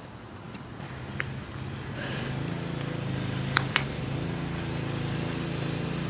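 An engine running steadily with a low hum that grows louder about two seconds in and then holds, with three short sharp clicks over it.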